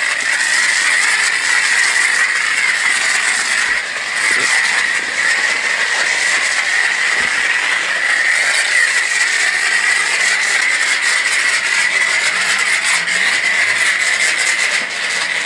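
Self-serve car wash spray wand spraying against a car, a loud steady hiss, likely laying on the trifoam.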